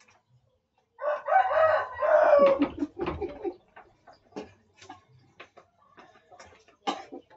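A rooster crowing once about a second in, a call of roughly two seconds that drops in pitch at the end. Scattered light clicks and knocks follow, with one sharper knock near the end.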